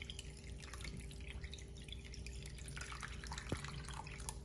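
Water pouring in a steady stream from a plastic jug into a saucepan of raw chicken pieces, splashing and trickling as the pan fills.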